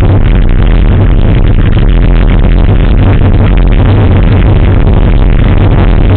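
Loud electronic dance music with heavy bass.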